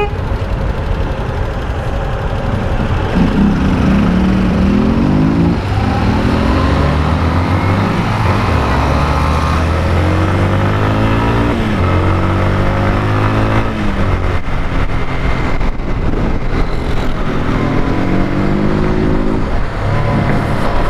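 Motorcycle engine accelerating through the gears, its pitch climbing and then dropping back at each shift, several times over, above a steady low rumble.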